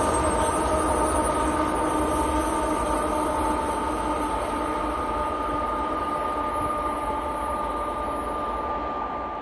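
Train rolling along the rails out of view: a steady rumble with several held ringing tones over it, slowly dropping in level and fading out near the end.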